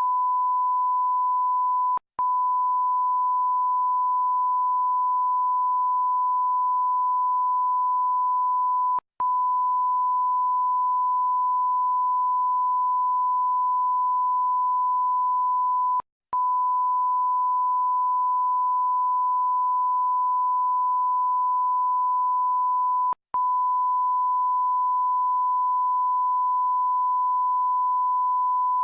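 Censor bleep: one steady, unwavering beep tone held continuously, cut by a very short gap four times, about every seven seconds.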